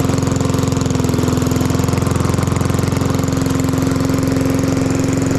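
Lawn mower engine running steadily at constant speed through a cheap aftermarket muffler, a fast, even exhaust pulse.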